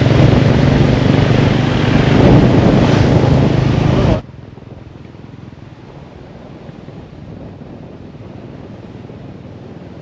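Wind blasting the microphone over a motorcycle engine's steady hum on a moving bike. About four seconds in it cuts off abruptly to a much quieter, steady hiss.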